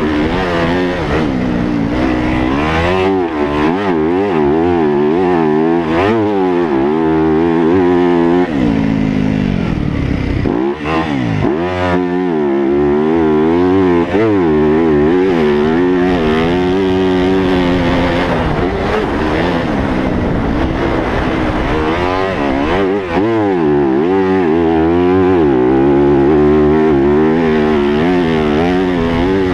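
Yamaha YZ250F's 250 cc four-stroke single-cylinder engine, heard onboard while riding a motocross track. The pitch climbs and drops over and over as the throttle is opened and closed through the gears, with a deeper dip and climb a little after ten seconds in, as if braking into a corner and accelerating out.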